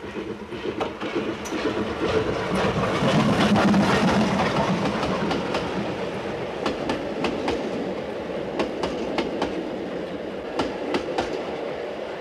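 Steam-hauled passenger train passing close by: the steam locomotive's running sound builds to its loudest about three to four seconds in. Then the wheels of the old-style passenger coaches click over the rail joints in quick pairs and groups as the cars roll past.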